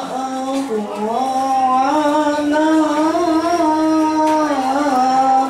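Sholawat, Islamic devotional chant in praise of the Prophet, sung by a single voice in long held notes that bend and waver in pitch, with a short dip about a second in.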